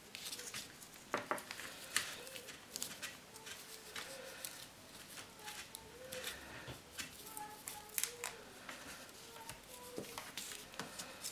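Handling noise: irregular small clicks and rustles of insulated wires and a small LED driver being worked through a fixture housing by hand.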